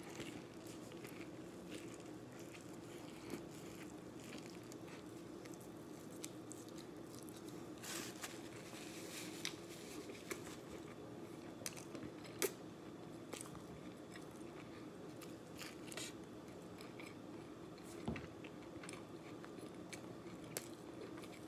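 A person biting into and chewing a flour-tortilla burrito: wet mouth smacks, small crunches and clicks scattered at irregular intervals over a steady low hum.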